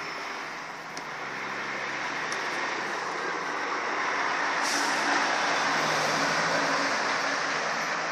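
Steady noise of a road vehicle passing, swelling to its loudest about five seconds in, with a brief hiss near the middle.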